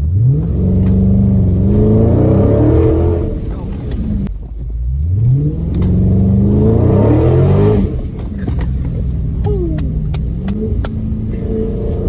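2020 Dodge Charger Scat Pack's 392 (6.4-litre) Hemi V8 under hard acceleration: the revs climb twice, each pull cut off suddenly about four and eight seconds in, then the engine runs more steadily.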